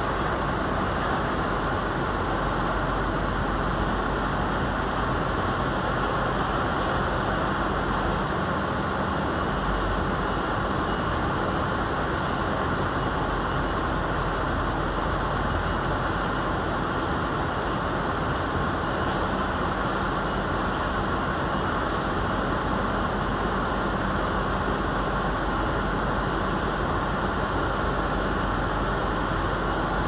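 Mountain stream flowing over a small cascade and rocky shallows: a steady, even rush of water.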